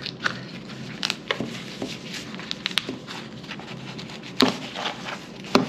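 Canvas fabric being pulled by hand off the staples of a wooden stretcher frame: irregular small snaps and crackles, with two louder sharp snaps near the end.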